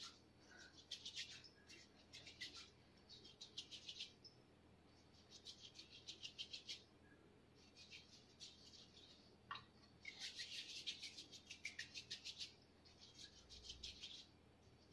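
Faint, rapid rasping in bursts of about a second, repeated with short gaps: palms rubbing and kneading two-part modelling clay together to mix it.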